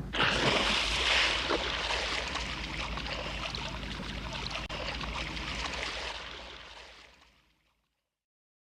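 A rushing, crackling water-like sound effect. It starts abruptly after a few sharp clicks, is loudest in the first second or so, then fades out smoothly over its last couple of seconds.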